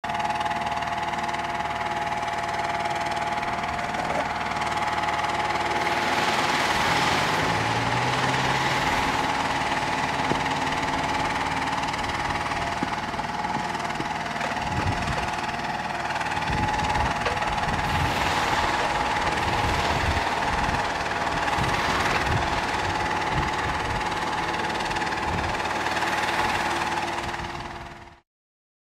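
Scania R620 V8 truck engine running through straight standing exhaust pipes, a rough low rumble with a steady high whine over it; the sound cuts off abruptly near the end.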